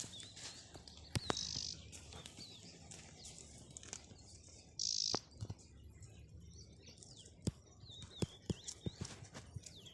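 Small birds chirping repeatedly in the background, with two short hisses, about a second in and about five seconds in, and scattered light clicks.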